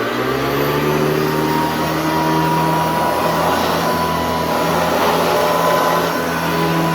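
Hoover Industrial Upright C1609 vacuum cleaner with a 4.8 amp motor running steadily, just up to speed after switch-on. It makes a steady hum with a thin high whine on top.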